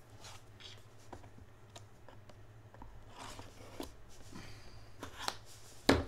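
Hands handling a small cardboard product box and a folding multitool: light clicks, taps and rustling of cardboard, with a sharp knock near the end.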